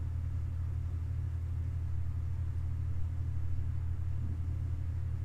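A steady low hum with no other distinct sound.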